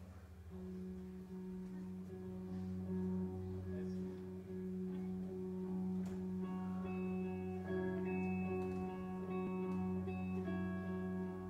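Live band music taped from the audience: guitar picking notes over a steady low drone. The guitar part gets busier about six seconds in.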